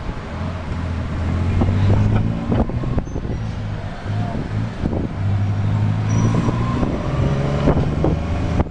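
Tuk-tuk engine running under way, its low note swelling in spells of a second or two as the driver accelerates, over a steady rush of road and traffic noise.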